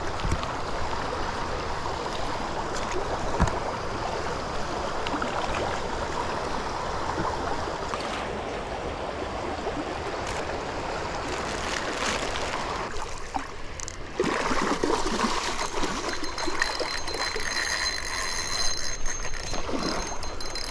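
River water rushing and gurgling over rocks in a steady flow, with a couple of dull knocks in the first few seconds.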